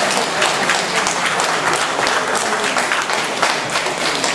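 Crowd of spectators applauding, a dense steady clatter of many hands clapping.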